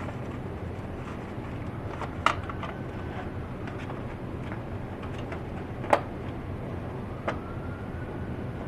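Steady low hum of a home furnace running, broken by three sharp clicks about two, six and seven seconds in.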